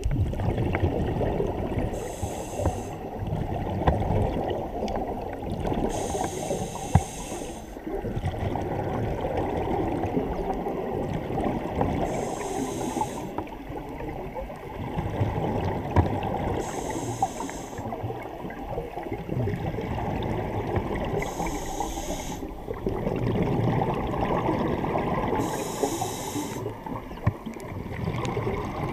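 Scuba breathing heard underwater: a regulator's hiss comes about every four to five seconds, six times in all, over a steady rumble and gurgle of exhaled bubbles.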